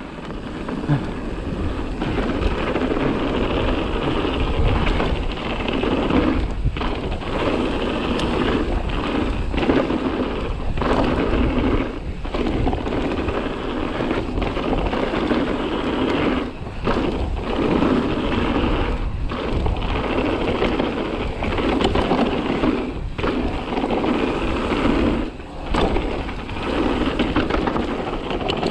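Mountain bike riding a rough trail at speed: a continuous rumble and rattle of tyres and bike on rocky ground, broken by short lulls every second or two.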